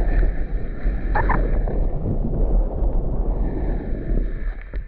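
Wind buffeting the microphone and skis scraping over hard-packed snow, a dense rumbling noise that fades near the end as the skier slows.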